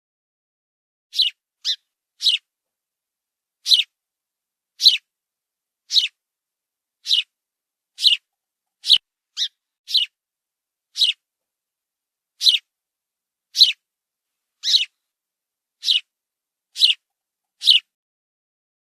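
Sparrow chirping: short single chirps about once a second, a few coming in quick pairs, with silence between them.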